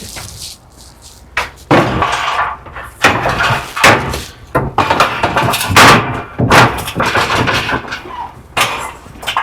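Baker scaffold platform being set down onto the steel frame and clipped in: a series of loud metal clanks and knocks, some ringing briefly.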